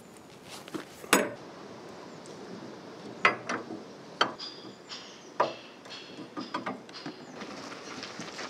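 Metal clicks and clanks of a combination spanner working on the sidecar's mounting nuts, with a few sharp knocks spread through and some brief metallic ringing in the middle.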